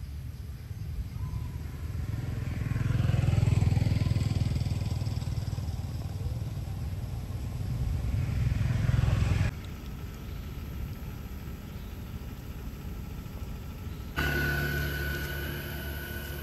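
Engine of a passing motor vehicle, its pitch rising and falling as it swells louder about three seconds in and again near nine seconds, then cut off abruptly. After that comes a quieter steady background, and later a steady hum with a high tone.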